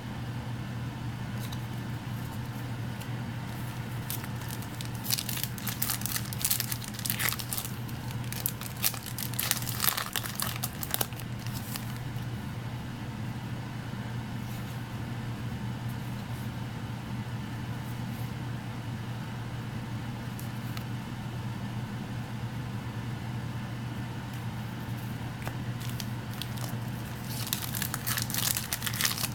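Foil trading-card booster-pack wrappers crinkling and being torn open, in bursts of crackly noise from about five to eleven seconds in and again near the end, over a steady low hum.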